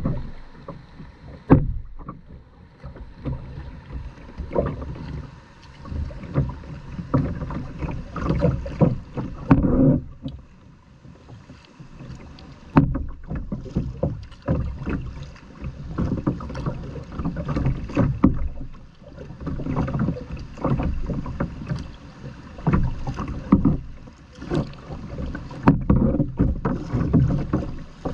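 Paddling a kayak down a river: irregular paddle splashes and knocks and water rushing past the plastic hull, over a low rumble of wind on the microphone.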